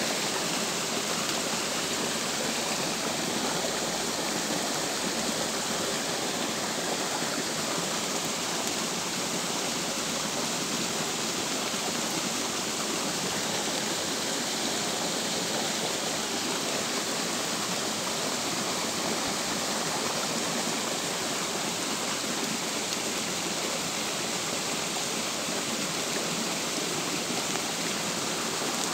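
Steady rain falling on a shallow stream and the leaves around it, an even hiss that holds unchanged throughout.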